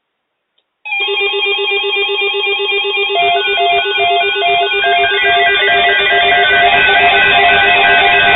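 Several NOAA weather alert radios sounding their alert alarms at once, set off by an incoming weather alert: overlapping electronic beeps and warbling tones at different pitches, some steady and some pulsing, starting suddenly about a second in.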